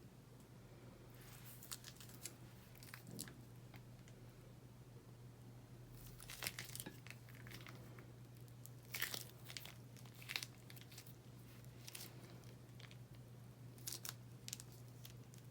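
Slime worked by hand, giving faint, irregular crackling pops in short clusters every couple of seconds, over a steady low hum.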